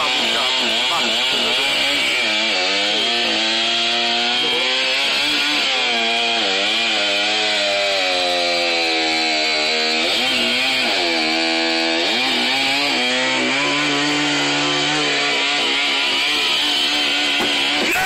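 Chainsaw running throughout, its engine pitch rising and falling over and over as it is revved and loaded in the cut through a thick tree trunk.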